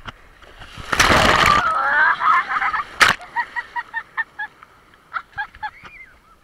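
Breaking wave washing over an action camera held at the waterline: a loud rush of surf about a second in, and a sharp knock near the three-second mark. Between and after these comes a shriek, then a string of short laughs.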